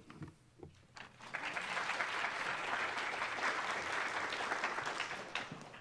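Audience applauding, starting about a second in and fading out near the end.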